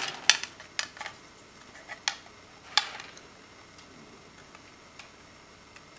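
Light clicks and taps of a 2.5-inch laptop hard drive against its sheet-metal mounting bracket as it is angled onto the bracket's pins: about six sharp clicks in the first three seconds, then near-quiet handling.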